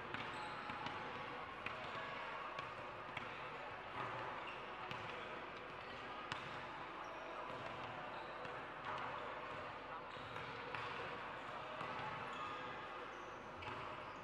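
Basketball bouncing on a court, irregular sharp thuds from dribbling and play, over the chatter of players and spectators in a gym.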